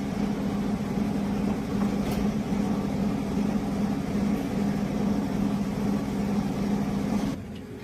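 Truck engine running steadily with a deep, even hum, dropping away suddenly near the end.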